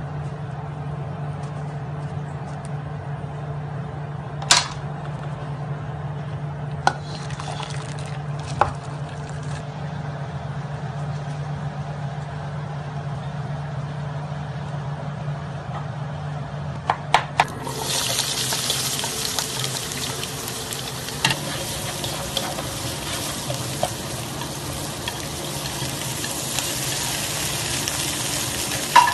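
Okra frying in oil in a pan: a loud, even sizzle that comes in suddenly about two-thirds of the way in, with a few knocks of stirring. Before that, a steady low hum with a few sharp clicks.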